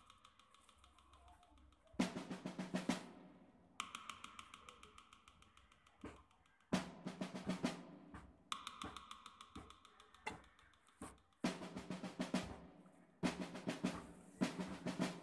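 Background music: a percussion track of quick drum rolls and rapid drum hits in short loud phrases that start abruptly every second or two, with quieter stretches between.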